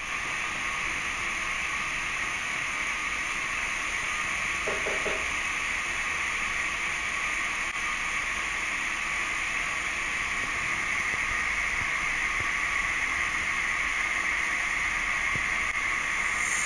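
Steady hiss of background room noise, with a brief cluster of faint clicks about five seconds in.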